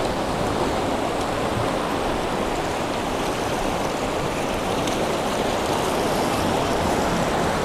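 Ocean surf washing against rocks, a steady rushing noise.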